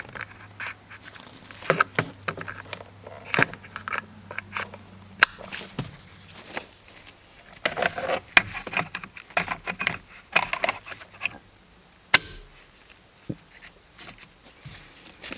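Plastic clicks and handling noise as a replacement turn signal switch is fitted onto a Chevrolet Cruze steering column, with two sharp snaps, one about five seconds in and one about twelve seconds in.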